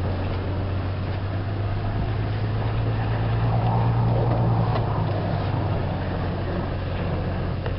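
Car engine and road noise heard from inside the cabin while driving: a steady low hum that swells slightly about halfway through.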